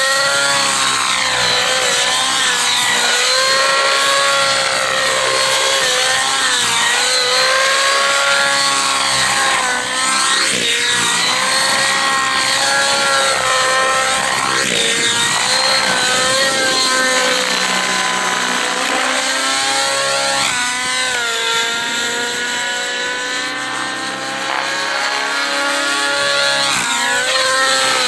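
Nitro-engined RC helicopter (a Rave ENV 90-size glow-engine model) flying aerobatics: a high engine-and-rotor whine that keeps sweeping up and down in pitch as it dives, climbs and passes by, with several quick swoops through the middle.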